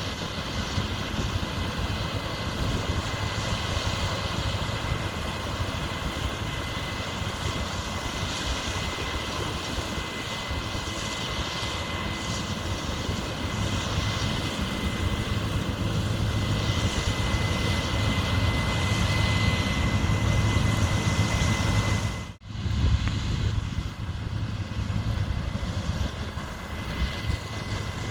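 Heavy machinery running steadily, a deep rumble under a constant high whine, with a brief dropout about 22 seconds in.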